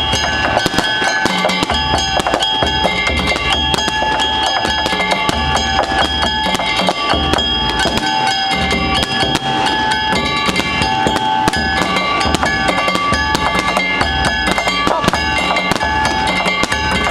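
Festival music: drums beating fast and steadily, with a pulsing low beat and held metallic ringing tones over it.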